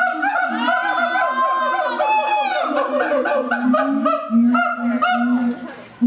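Siamang calling with its throat sac inflated: a rapid series of short, loud honking calls overlapping with drawn-out wails that rise and fall in pitch, fading out near the end.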